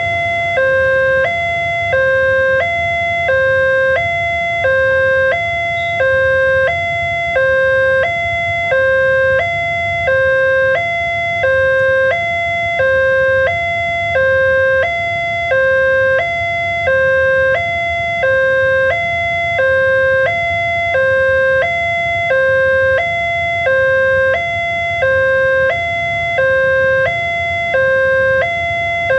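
Railway level-crossing warning alarm from the loudspeaker on the crossing post: an electronic two-tone signal alternating steadily between a higher and a lower pitch, about one high-low cycle per second. It sounds while the red lights flash and the barrier is down, warning that a train is approaching.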